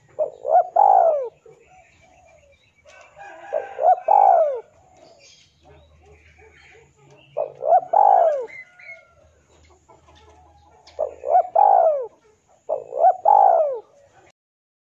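Male spotted dove cooing: five calls a few seconds apart, each a couple of quick coos ending in a longer note that rises and falls. It is the male's call to a rival.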